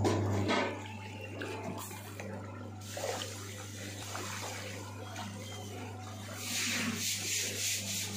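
Water sloshing and splashing in a concrete catfish tank as the crowded catfish stir the surface, with a louder burst of splashing near the end. A steady low hum runs underneath.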